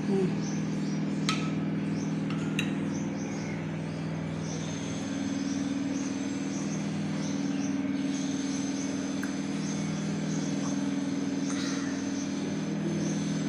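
Steady low hum with faint, high-pitched insect chirping above it.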